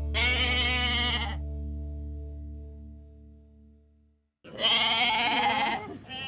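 A goat bleating: two long calls with a wavering pitch, each about a second and a half, and a third starting at the very end. Background music with steady held tones plays under the first call and fades out about four seconds in.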